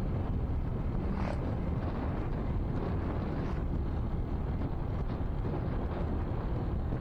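Steady low wind rumble on the microphone of a moving motorcycle, with road noise underneath.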